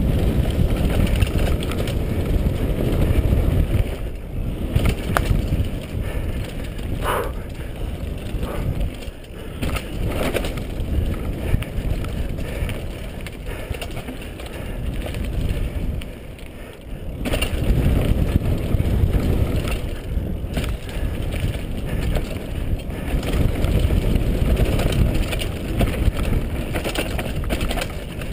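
Mountain bike rolling fast down a dirt trail: heavy wind rush on the camera microphone, with the tyres rumbling and rattling over dirt and roots. It eases briefly a little past halfway.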